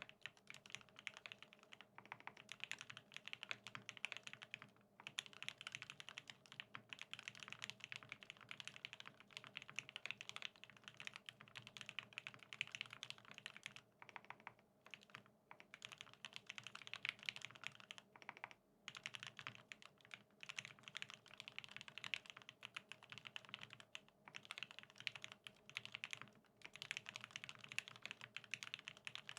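Continuous fast typing on a custom BAEBAE TKL mechanical keyboard with lubed OA linear switches on an aluminium plate and Cherry-profile G81-3077 keycaps: rapid overlapping keystrokes, with brief pauses a few times.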